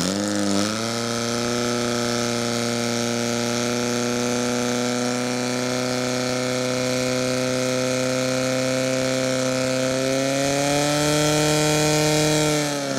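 Portable fire pump engine running at high, steady revs while it pushes water through the attack hoses. The note dips briefly at the start, climbs a little after about ten seconds as the jets reach the targets, then drops away right at the end.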